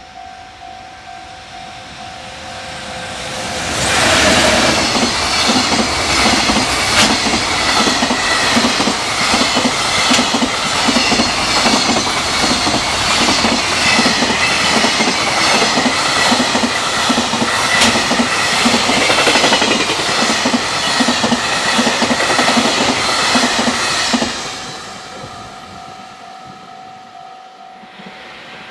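Freight train passing at speed over a level crossing: its wheels clatter over the rail joints in a steady clickety-clack rhythm. The train arrives suddenly about four seconds in and cuts off about twenty seconds later. A steady ringing tone, likely the crossing's warning bell, is heard before the train arrives and again after it has gone.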